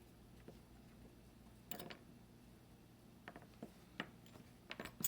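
Faint, scattered light clicks and taps of small metal lock parts, the pins and springs of a disassembled pin-tumbler padlock, being handled. A few ticks come about a second and a half in, and a more frequent run comes in the last two seconds.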